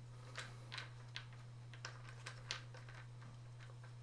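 Faint, irregular small clicks and ticks of an aluminium travel tripod's ball head being unscrewed by hand from the centre column, about ten in all, over a steady low hum.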